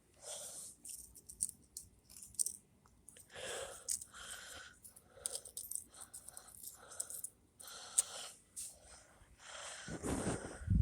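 Scattered light clicks, scrapes and rattles of small hard pieces being handled, like bits of broken plastic and disc. Near the end a loud low rumble comes in.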